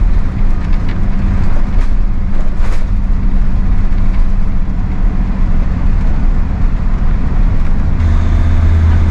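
Auto-Trail Grande Frontier motorhome on the move: a steady engine drone with road noise, the low engine note growing louder about eight seconds in.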